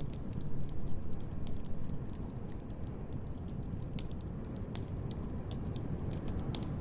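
Wood fire crackling in a fireplace: irregular sharp pops and snaps, clustered in the first second and again about four to five seconds in, over a low steady rumble.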